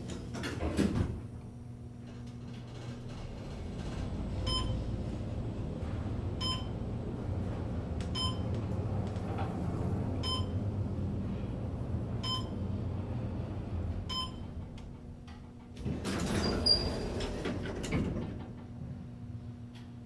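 Schindler 500A traction elevator doors sliding shut, then the car riding down with a steady low hum. A short electronic beep sounds about every two seconds, six in all, as the car counts down the floors. Near the end the doors slide open.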